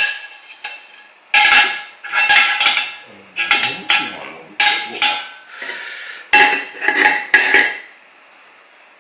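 An aluminium frying pan and pot clatter and clink against the metal pot supports and windscreens of two Primus camping stoves, the Eta Power and the Eta Spider, as they are set down, shifted and lifted off. It is a string of sharp knocks and scrapes over about six seconds, and it stops near the end.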